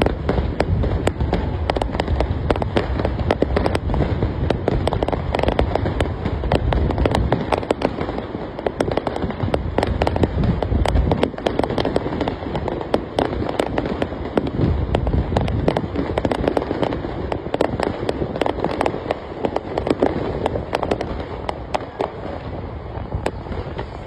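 Fireworks display going off continuously: a dense run of rapid bangs and crackling over a deep rumble of larger shell bursts.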